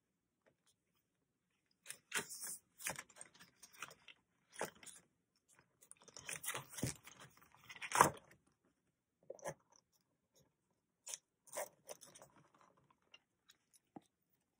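Clear plastic ring-binder planner and its inserts being handled: irregular crinkling and rustling of stiff plastic and paper, starting about two seconds in. A sharp click about eight seconds in is the loudest sound.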